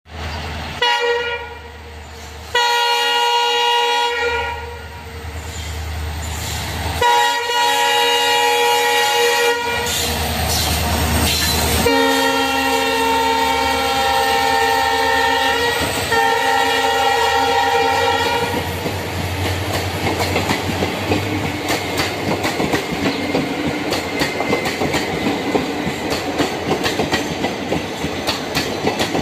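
Train horn sounding in about five long blasts, then the fast, rhythmic clickety-clack of train wheels over rail joints for the last third.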